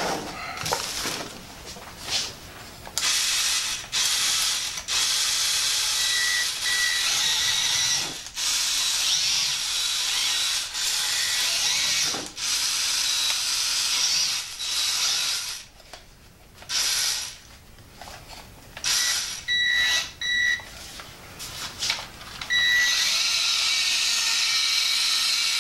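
Electric drive motor and gearbox of a 1/16-scale Fayee 4WD rock crawler on snow tracks, whirring as it is run from the remote in stop-start bursts of a few seconds each, with a faint high whine.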